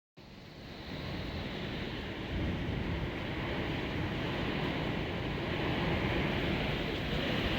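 Steady rushing noise that fades in over about the first second and then holds, like wind, rain or road noise.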